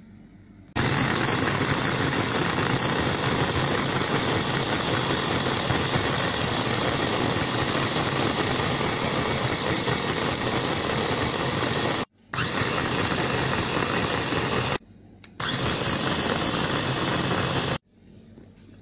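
Electric mini food chopper running, its blades chopping lemon slices and lemongrass in a glass bowl. It starts about a second in and runs for about eleven seconds, then is pulsed twice more with short stops between.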